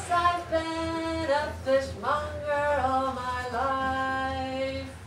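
Unaccompanied singing voices holding long notes that step up and down in pitch.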